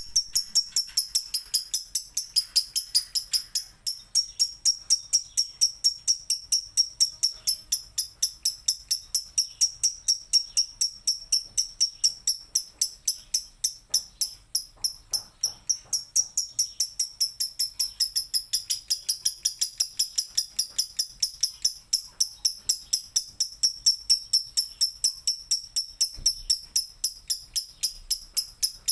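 Lovebird singing a long unbroken trill (the 'ngekek' song kept by Indonesian lovebird fanciers): rapid shrill chirps at about four a second, held without a break.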